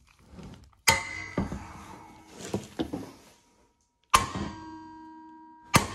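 Metal knocks and scraping as locking pliers clamped on the wastegate flange are worked against the rusty steel exhaust pipe. There are three sharp knocks: about a second in, just after four seconds, and near the end. Each leaves a brief metallic ring, with scraping and rattling between the first two.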